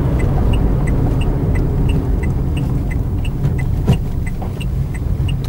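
Car engine and road rumble heard from inside the cabin while driving, with a turn-signal indicator ticking evenly about three times a second.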